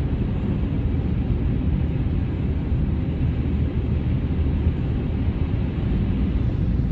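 Winter storm wind blowing steadily, a low rumbling noise buffeting the microphone.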